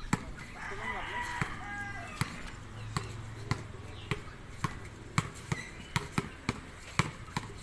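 Basketball dribbled on an outdoor concrete court: a steady run of sharp bounces, about two a second, coming faster near the end.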